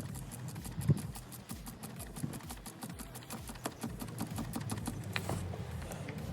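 Rapid, uneven clicking of a 3/8 ratchet being worked on the bolts, with a single sharper knock about a second in.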